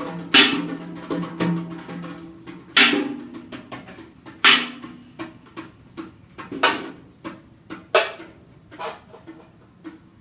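Improvised drum kit and electric guitar duo: sparse, irregular drum and cymbal strikes a second or two apart, each ringing out, over low sustained guitar tones that fade out about halfway through. The strikes grow quieter toward the end.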